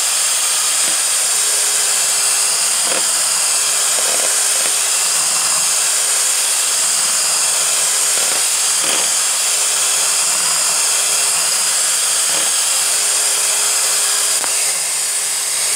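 Electric hand mixer running steadily, its twin beaters whipping egg whites in a bowl into stiff peaks.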